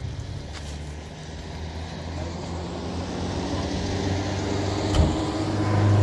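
A motor vehicle engine running with a steady low hum, growing louder toward the end, with one sharp knock about five seconds in.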